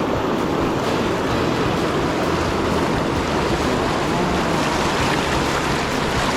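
Fast river water rushing steadily around the angler, an even, unbroken noise of running rapids.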